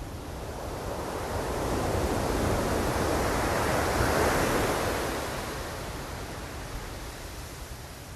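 Ocean surf: a wave breaks and washes in, the rush building over about two seconds, peaking near the middle and fading away, over a steady low rumble.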